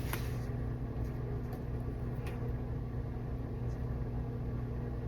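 Steady low hum from a running motor or appliance, with a faint click about two seconds in.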